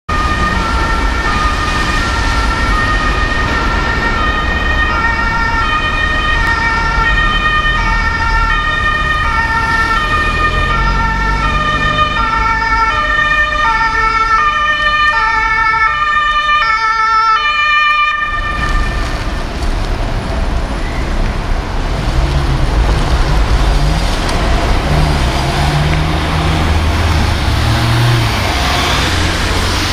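German ambulance two-tone siren (Martinshorn) sounding, switching back and forth between a high and a low note. About eighteen seconds in it stops, leaving engine and traffic noise as the ambulance comes by.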